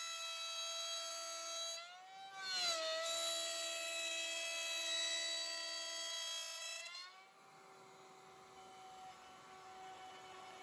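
Table-mounted wood router running at speed, a steady high whine as a wooden strip is fed past the bit. The pitch bends briefly about two seconds in, and just past seven seconds it rises slightly and the sound gets quieter.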